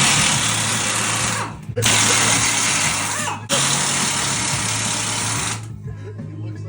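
Handheld power tool run in three bursts of about one and a half to two seconds each, with short pauses between; it stops a little over a second before the end.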